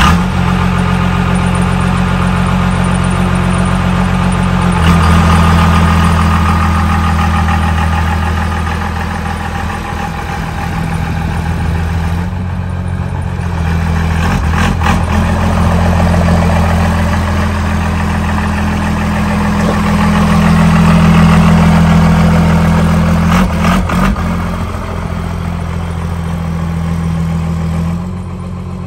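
First-gen Dodge Ram's Cummins diesel running just after starting, its exhaust leaving through a hood stack capped by a metal trash can. It holds a steady idle note that gets louder about five seconds in, swells and eases a few times, and drops off near the end.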